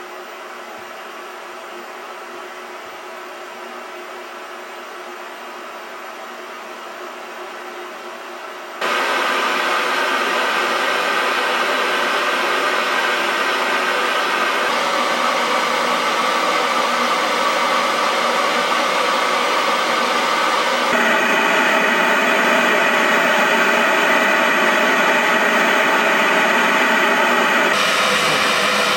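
Television static: a steady hiss that jumps abruptly louder and shifts in tone several times.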